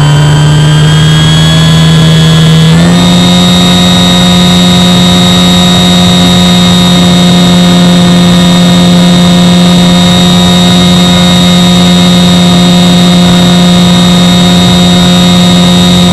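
Avios Grand Tundra RC floatplane's electric motor and propeller heard from on board the airframe: a loud, steady whine that steps up in pitch about three seconds in as the throttle is opened, then holds.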